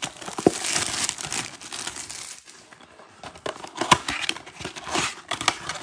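Plastic shrink wrap crinkling and tearing as a trading-card blaster box is unwrapped. Near the end comes a run of sharp crackles and clicks as the cardboard box is opened and handled.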